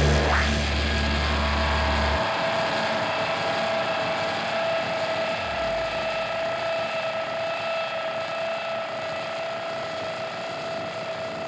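Closing stretch of a live band's noise-laden piece: a held tone and a few fainter held tones ride over a dense wash of noise, slowly fading. A low bass drone cuts off about two seconds in.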